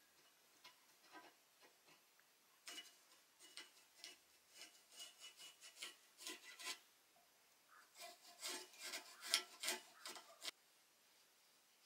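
Irregular bursts of scraping and rubbing as steel pieces for a homemade plow are handled and marked against each other on a workbench, with small clicks and a faint metallic ring. There are two busy spells, the second louder, and the sound stops about ten and a half seconds in.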